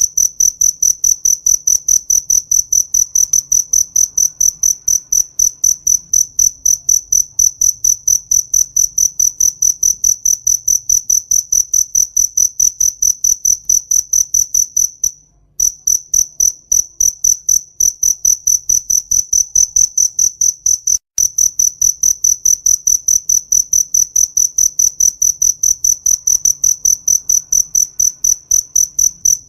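A cricket chirping in a fast, even rhythm of high, pure-toned pulses, with two brief breaks about halfway through and about two-thirds of the way through.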